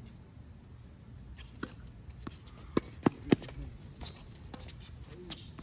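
Tennis balls being struck by rackets and bouncing on a hard court during a rally: a few sharp pops, then three loud cracks in quick succession about three seconds in.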